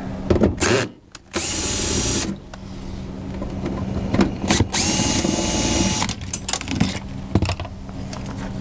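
Cordless drill-driver with a nut-driver bit backing out the screws holding an RV refrigerator's igniter, in two runs of about a second each with a steady motor whine. There are clicks of tool and metal parts being handled between and after the runs.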